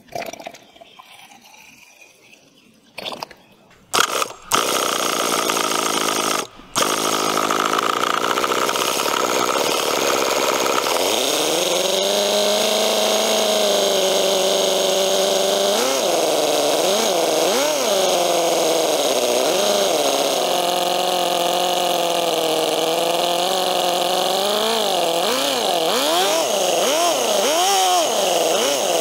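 Toyan FS-L400 14 cc inline four-cylinder four-stroke model engine starting after a couple of short bursts, then running at high revs, briefly cutting out once early on before running steadily. In the second half the throttle is blipped again and again, the revs rising and falling sharply.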